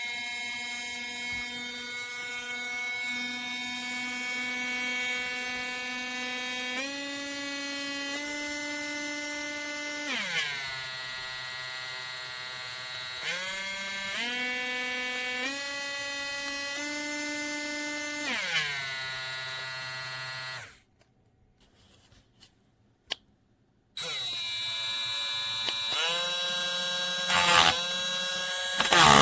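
Small cordless rotary tool motor running with a high whine, its pitch stepping up through the speed settings and dropping back down twice. It cuts off for about three seconds, with a couple of faint clicks, and then starts up again.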